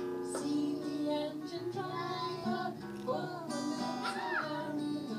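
Acoustic guitar strummed as accompaniment to singing, with a child's voice among the singers. Near the end a high voice slides briefly up and back down.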